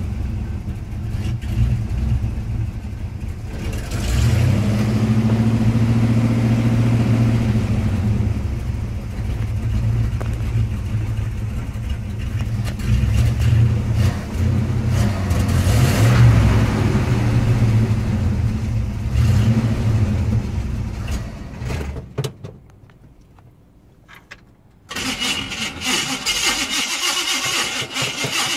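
1968 Chevrolet Impala's engine running and being revved several times with the gas pedal, then shutting off a little over 20 seconds in. About three seconds later the starter motor cranks the engine over with a rasping churn.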